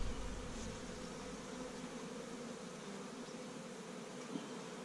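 Carniolan honeybees buzzing steadily around an open hive, an even low hum, with a faint knock near the end.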